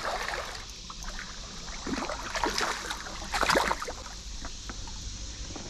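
River water splashing in irregular bursts, loudest about two and three and a half seconds in, as a large hooked smallmouth bass is being landed at the water's edge.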